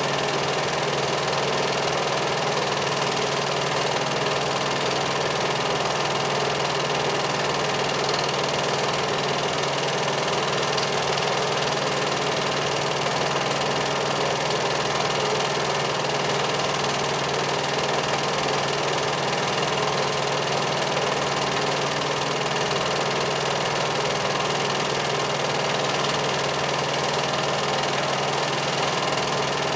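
Film projector running with a steady mechanical whir and clatter.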